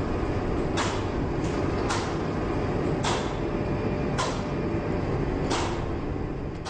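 Large clockwork mechanism ticking about once a second, each tick a sharp click over a steady low mechanical rumble.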